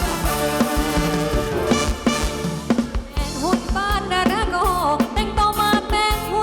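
Thai ramwong dance music played by a live band, with a steady drum-kit beat; a wavering lead melody line comes in about halfway through.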